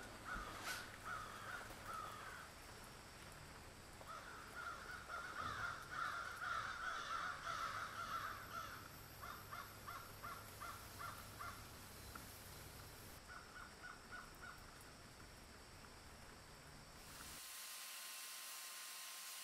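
Crows cawing faintly in runs of short harsh calls over a low steady hum. About two seconds before the end this gives way to the steady hiss of a sandblasting cabinet's air nozzle.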